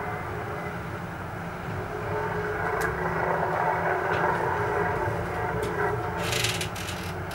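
Street traffic: the engines of passing cars and a small box van running as a steady drone, with a short hiss a little after six seconds in.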